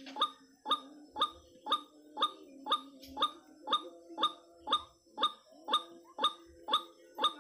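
White-breasted waterhen (ruak-ruak) calling: a short, sharp note repeated evenly about twice a second.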